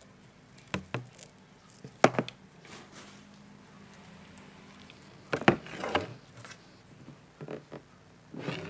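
A semi-modular ATX power supply and its attached sleeved cables and plastic connectors being handled: irregular sharp clicks and knocks with soft rustling in between, a few in the first two seconds, a cluster about five to six seconds in, and more near the end as the unit is turned over.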